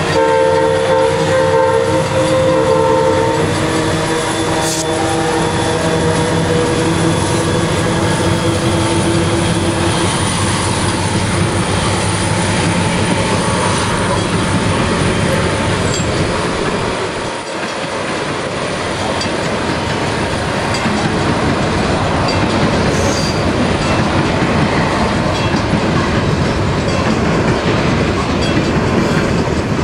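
NSW 81 class diesel locomotives hauling a wheat train past, with a train horn sounding for about three seconds at the start. After that comes the steady rumble and clatter of grain hopper wagons rolling by.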